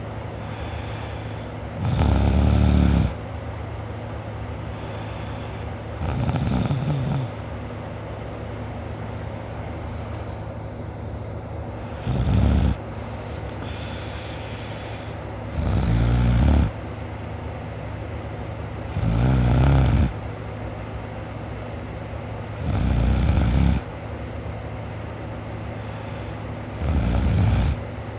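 A person snoring in deep sleep, seven snores in a regular rhythm of about one every three to four seconds. Each snore lasts about a second and stands well above a steady low hum.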